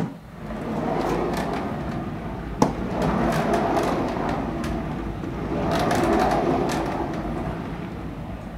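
A heavy 3D printer turning on a turntable, with a steady rolling rumble. A click sounds as it is pushed off, and another knock comes about two and a half seconds in. The rumble swells twice and fades near the end.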